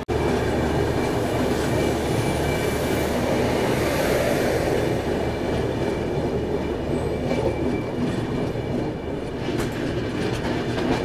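Express train running along the track: a steady rumble of wheels on rails and coach noise.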